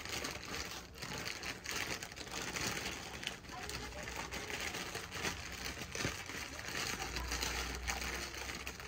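Clothing rustling and crinkling as hands adjust a dress on the wearer, with many small handling noises.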